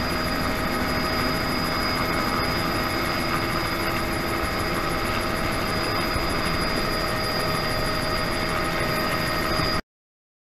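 Bell 206B3 JetRanger turbine helicopter running steadily: a high, even turbine whine over the main-rotor and transmission noise. It cuts off abruptly near the end.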